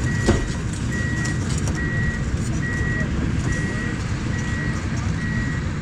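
Kobelco excavator's diesel engine running with its travel alarm beeping at an even pace, a little faster than once a second, the beeping stopping near the end. A single sharp knock comes about a third of a second in.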